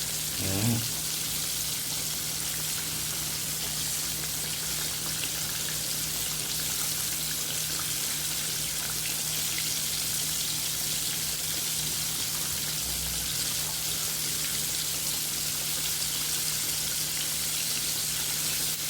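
Food frying in hot oil: a steady, even sizzle and crackle, with a faint low hum underneath.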